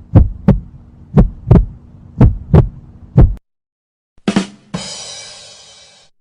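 Heartbeat sound effect: loud, low double thumps, lub-dub, about once a second over a faint hum, stopping about three and a half seconds in. After a short pause, a brief hit and a bright, hissing sound that fades out over about a second and a half.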